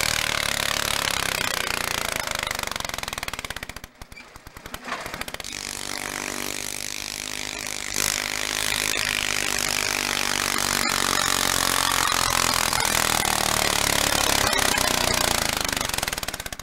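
Garden tractor engines running hard under load while pulling a weight-transfer sled, first one tractor and then another. The sound drops away sharply about four seconds in, and in the second half the engine note climbs in pitch as the tractor pulls.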